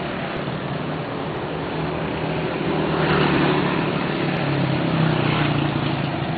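Road traffic: vehicle engines running and passing close by in a continuous roar-free hum, growing louder about three seconds in and again near five seconds.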